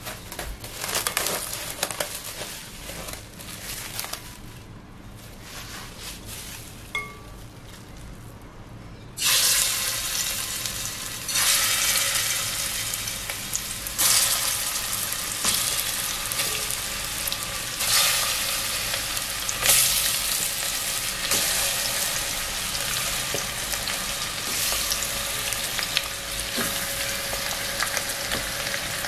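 Seasoned chicken wings frying in hot oil in an aluminium pressure-cooker pot. The first few seconds are quieter, with a few faint clicks. About nine seconds in, a loud sizzle starts suddenly as the wings go into the oil, and it surges each time more pieces are added.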